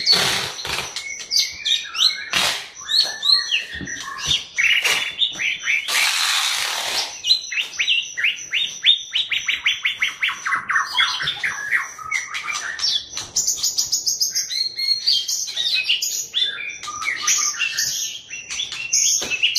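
White-rumped shama (Murai Medan) singing a varied song of whistles and chattering phrases. About eight seconds in it breaks into a fast run of repeated chattering notes, several a second for about four seconds (the 'crecetan' prized in shama song). About six seconds in there is a harsh noisy burst.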